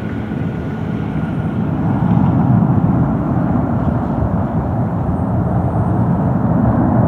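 Boeing 737-800's CFM56 jet engines during the landing rollout, heard from beside the runway: a steady low rumbling noise that grows louder about two seconds in.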